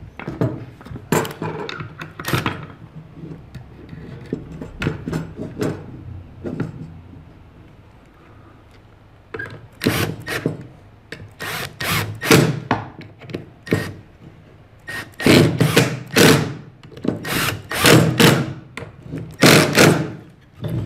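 A few knocks of wooden parts being handled, then from about ten seconds in a cordless drill driving screws into wood in a series of short bursts.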